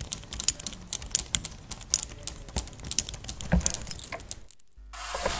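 Rapid, irregular light clinks and jingles of small hard objects. They stop about four and a half seconds in, and a steady hiss starts just before the end.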